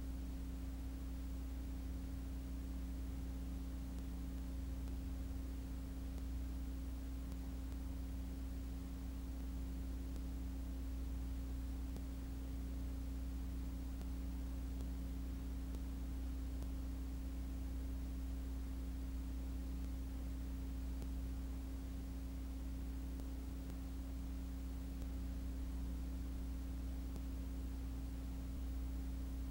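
Steady low electrical hum made of a few fixed tones, with faint hiss and no other sound; it does not change at all.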